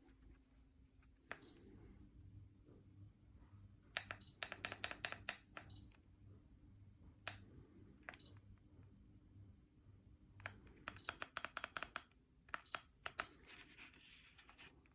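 Short high beeps, each with a click, in three quick clusters and a few singles, over a faint steady hum. The sound fits a remote-controlled ceiling fan light acknowledging button presses.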